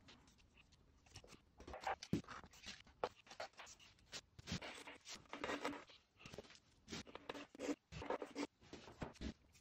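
Fingers rubbing and scraping over plaster moulding and the wall, smoothing plaster adhesive into a joint. The strokes are short, scratchy and irregular, and come in clusters.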